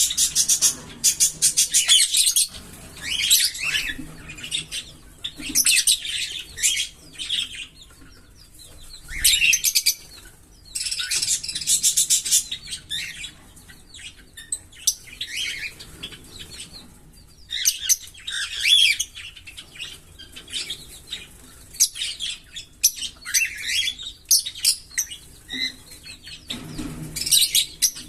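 A pair of green Fischer's lovebirds chattering and chirping in shrill, rapid bursts of a second or two with short pauses between them, some bursts running into quick trilled strings of notes.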